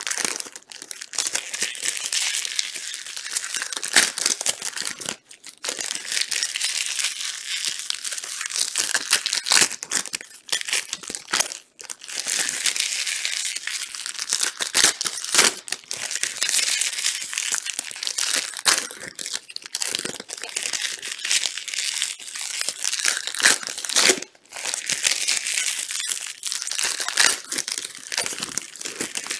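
Panini Prizm trading-card pack wrappers crinkling and tearing as packs are opened. The crackle is continuous, with a few brief pauses.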